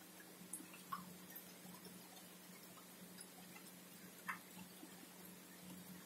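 Faint night-time outdoor ambience: a low steady hum with a few soft, scattered ticks and clicks, the loudest about four seconds in.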